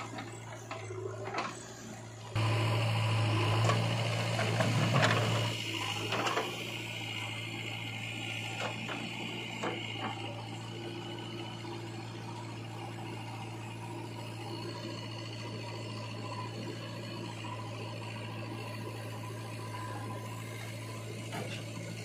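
JCB 3DX backhoe loader's diesel engine running steadily while the backhoe works, with a louder stretch of knocks and clatter a few seconds in as the bucket dumps earth into a tractor trolley.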